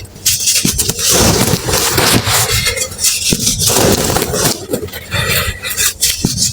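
Dry cement lumps crumbling and crushing close to the microphone: a dense, crunchy crackle of many small breaks and grains, coming in several uneven bouts.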